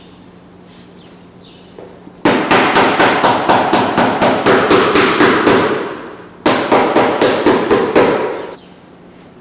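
Cobbler's hammer beating a sole down onto a boot held on a last on a shoe jack. Two fast runs of strikes, about four or five a second: the first lasts about four seconds, and the second, after a short pause, about two.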